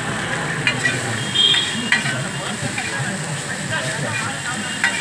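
Chowmein noodles and vegetables sizzling on a large flat griddle as they are stir-fried, with metal spatulas scraping and clinking against the griddle several times.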